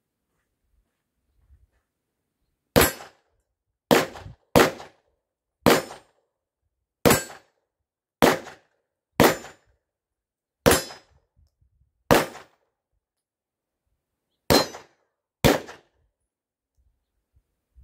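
Eleven 9mm pistol shots from a Glock 22 fitted with a Lone Wolf 9mm conversion barrel, fired slowly at about one shot a second, with a longer pause before the last two. Each shot has a short echo.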